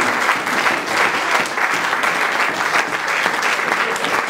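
Audience in a hall applauding steadily, many hands clapping at once.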